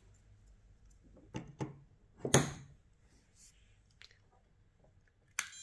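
Clicks and knocks of wires and parts being handled as power leads are connected to a xenon headlight ballast, the loudest knock a little over two seconds in. Near the end, a sudden sharp snap as power goes on and the ballast fires its D3S xenon bulb, with a steady high-pitched electronic whine starting right after.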